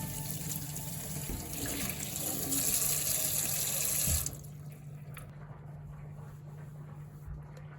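Kitchen tap running water into the sink, then turned off about four seconds in, leaving a steady low hum.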